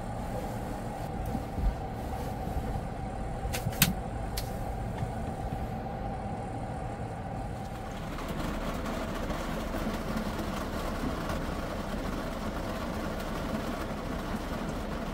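A camper van's air conditioner runs with a steady hum and whine, with a couple of sharp clicks in the first four seconds. About eight seconds in, this gives way to monsoon rain falling steadily on the van's roof, heard from inside.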